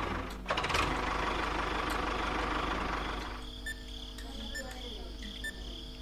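A dense engine-like running noise with a couple of clicks, giving way about halfway to a quieter stretch of short ticks about once a second over a faint steady high tone: a countdown-timer sound effect for a toy dynamite stick.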